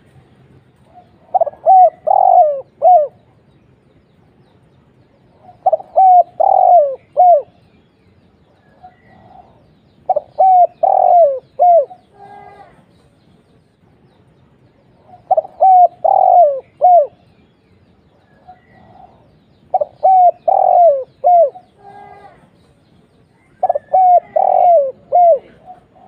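Spotted dove (tekukur) cooing: six phrases of four or five coos each, one phrase every four to five seconds.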